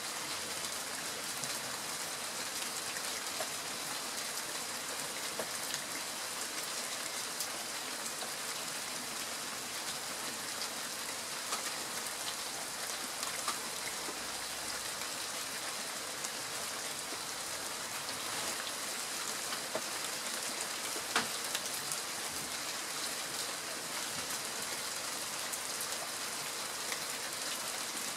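Steady rain falling, with single drops tapping close by every now and then.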